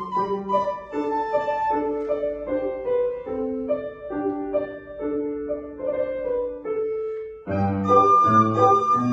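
Solo instrumental music: a dance tune played as a melody of held notes over a light accompaniment. About seven and a half seconds in, after a short break, it comes back louder and fuller, with bass notes added.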